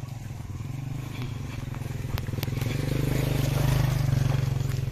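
Small motorcycle engine labouring along a rutted, muddy dirt track. Its note grows louder from about halfway through and eases slightly near the end, with a few sharp clicks.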